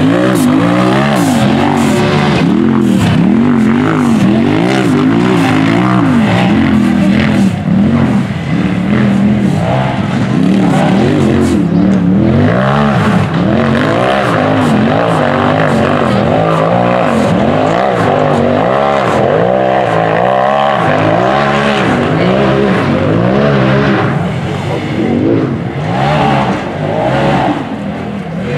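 Rock bouncer buggy engine under hard throttle, revving up and down over and over as it claws up a rocky hill climb. It drops back somewhat near the end.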